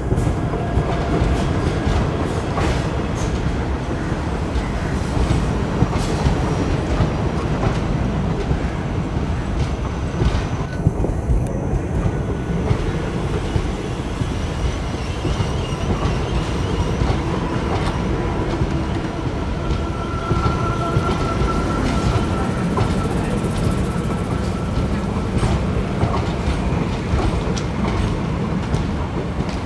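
Indian Railways passenger coaches rolling past close by, a steady rumble with the clickety-clack of the wheels over rail joints. A faint wheel squeal comes in about two-thirds of the way through.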